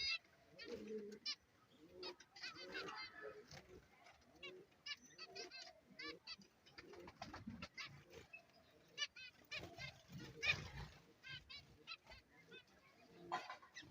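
Small caged finches, taken for zebra finches, calling: a busy stream of short, high chirps and nasal beeps, with a louder burst of noise about ten seconds in.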